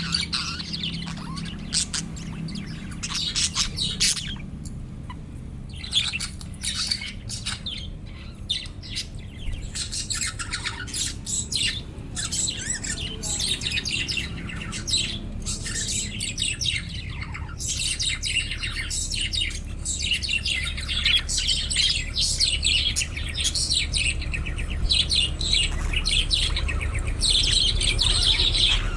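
Budgies chirping and warbling in rapid, overlapping bursts of high chatter, with a short lull about five seconds in.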